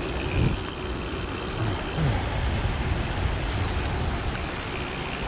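Gravel bike rolling over a wet, puddled track in heavy rain: a steady rumble of tyres on wet gravel with the hiss of rain.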